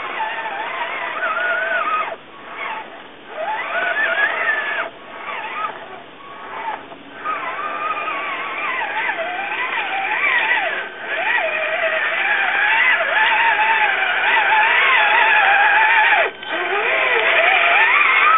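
Electric motors and gearboxes of radio-controlled scale crawler trucks, an RC4WD Trail Finder 2 among them, whining as they crawl over rocks, the pitch rising and falling with the throttle. The whine cuts out briefly several times.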